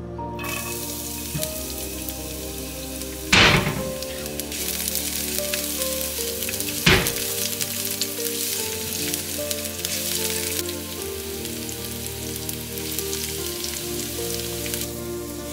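Sliced red chilies and chopped garlic frying in hot oil in a nonstick pan: a steady sizzle, stirred with a silicone spatula, with two loud sudden bursts about three and a half and seven seconds in. The sizzle thins near the end.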